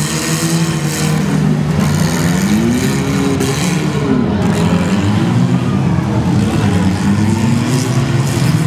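Several compact demolition derby cars' engines running and revving together, their pitch rising and falling over one another.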